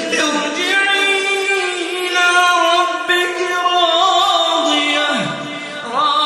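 A voice chanting Quran recitation in a melodic style, holding long notes with wavering ornaments, heavily reverberant. The pitch falls away at the end of a phrase near the end.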